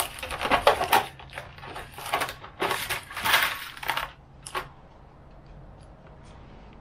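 Screws and small metal hardware clinking and rattling as they are rummaged through by hand, in several quick clusters over the first four and a half seconds.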